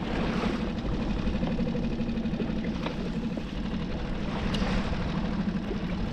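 Small outboard motor of a Solo Skiff idling steadily, with two faint clicks.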